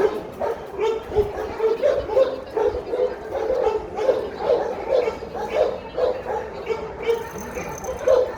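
A dog yipping over and over, about two short, high yips a second.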